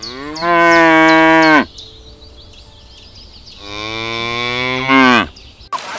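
A cow mooing twice: two long calls, each ending with a falling pitch.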